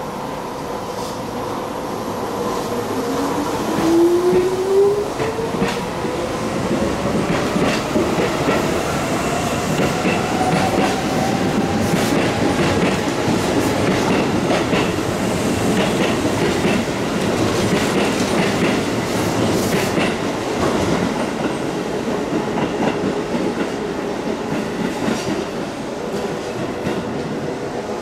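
Keisei electric commuter train pulling away and gathering speed: its motor tone rises steadily in pitch over the first ten seconds or so, over a steady running rumble with wheels clacking over rail joints.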